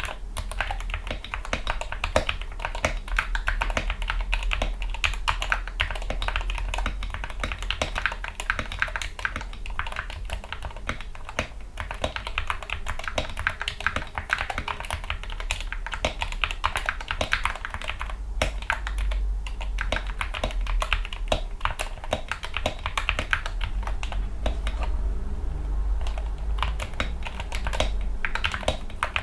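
Fast, continuous typing on a Gamakay MK61 keyboard with lubricated Gateron Yellow optical linear switches, PBT keycaps and foam inside, a dense run of keystroke clacks that lightens briefly near the end.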